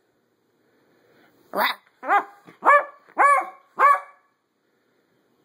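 Beagle puppy barking in play, five short high yappy barks about half a second apart, starting about a second and a half in.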